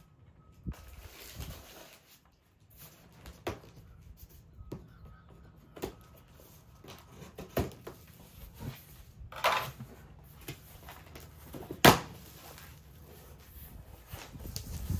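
A large cardboard box being cut open and its flaps pulled back: scattered rustles and scrapes of cardboard and tape, a longer scraping noise near the middle, and a sharp knock or slap about twelve seconds in, the loudest sound.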